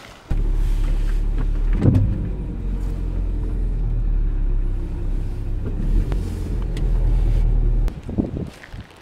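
A car's engine and running noise: a steady low drone that cuts in abruptly just after the start and drops away about a second before the end.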